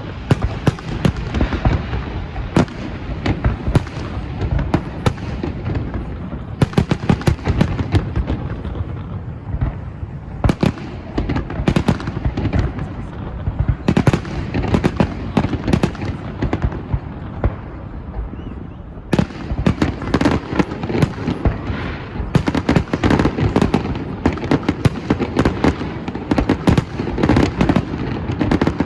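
Fireworks display: a continuous barrage of bangs and crackling bursts, easing briefly past the middle and then coming back denser.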